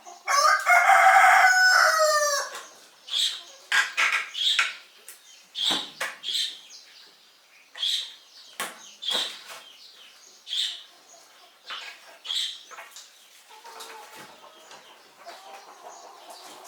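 A rooster crows once, loudly, for about two seconds, the call dropping in pitch at the end. It is followed by a run of short, sharp sounds, roughly one a second, fading out after about twelve seconds.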